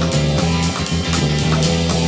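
Background music: a guitar-led track with drums keeping a steady beat over a sustained bass line.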